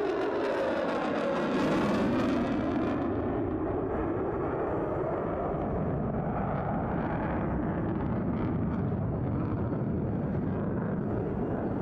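F-22 Raptor fighter jet flying in afterburner: a sweeping, hissing rush for about the first three seconds as it passes, then a steady, deep jet rumble as it flies on.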